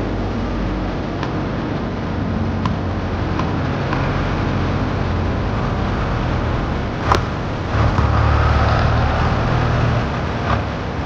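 Steady road traffic rumble from the elevated road overhead, swelling louder for a couple of seconds past the middle as a heavier vehicle passes. A basketball thuds on the hard court now and then, with one sharper impact about seven seconds in.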